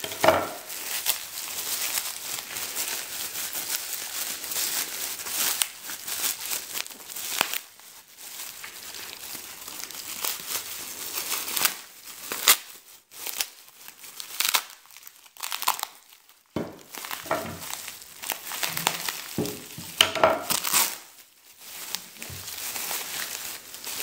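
Plastic bubble wrap crinkling and tearing as hands pull it apart and peel it off, in irregular spells with a few short pauses.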